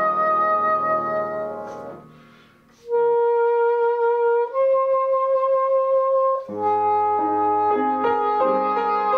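Soprano saxophone and piano playing a slow piece. A held saxophone note over piano chords fades away about two seconds in, and after a short lull the saxophone holds two long notes, the second a little higher. The piano chords come back in about six and a half seconds in as the melody moves on.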